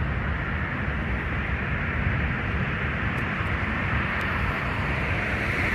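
Steady road traffic noise from passing cars, a low engine rumble with tyre hiss that grows a little louder near the end.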